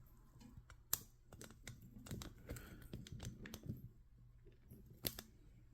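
Faint scattered clicks and light handling noises, with two sharper clicks about a second in and near the end.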